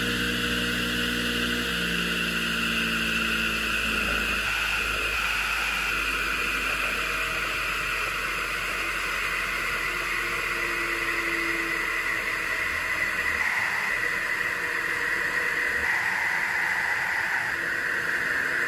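Table saw running steadily at full speed with no cut being made: a steady whirring hiss from the spinning blade over a low motor hum.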